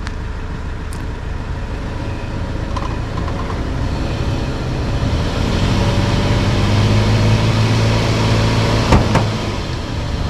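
Vehicle engine revving harder and harder under heavy load, straining to drag a stuck SUV out of soft ground on a tow rope. About nine seconds in there is a sharp crack, after which the engine eases off; it didn't sound good, and is thought to be the rope's knot letting go.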